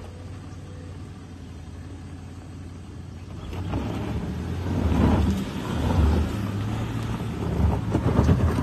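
Land Rover Discovery 4 engine pulling up a steep loose-dirt slope. It runs low at first, then revs hard from about three and a half seconds in, surging several times as the tyres churn the loose dirt.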